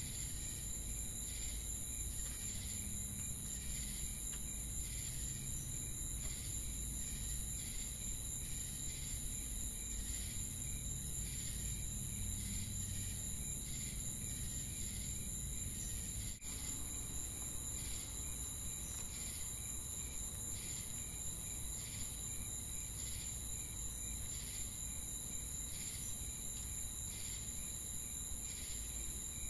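Night-time insect chorus from an added ambience track: crickets chirping in regular pulses about two a second over a steady high-pitched trill. There is a brief dropout about sixteen seconds in.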